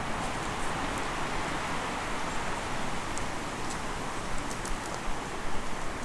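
Steady rushing hiss of flowing water, with faint scattered crunches and ticks of footsteps on a bark-and-gravel path.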